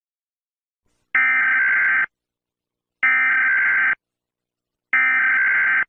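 Emergency Alert System SAME header: three identical bursts of digital data tones, each about a second long and about a second apart, the coded preamble that opens an emergency alert broadcast.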